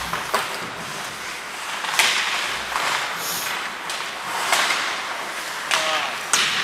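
Ice hockey play on a rink: a steady wash of skates on ice broken by about half a dozen sharp clacks and scrapes of sticks, puck and skate blades.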